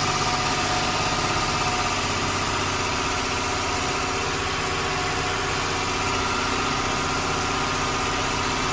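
Truck's diesel engine running steadily, heard from inside the cab.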